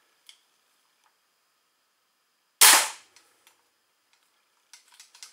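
A single crossbow shot at point blank from an Excalibur Vortex recurve crossbow: the string's release and the bolt's hit on the target merge into one sharp crack a little over halfway through, dying away in about half a second. A few faint clicks follow near the end.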